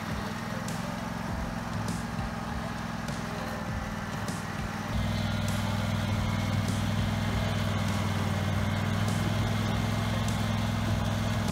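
Riding lawn mower's engine running under load as it tows a car on a strap, a steady hum that gets louder about five seconds in.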